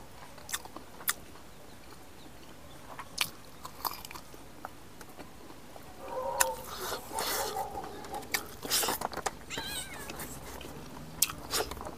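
Chewing meat with wet mouth sounds and scattered sharp clicks. From about six seconds in, a cat meows a few times.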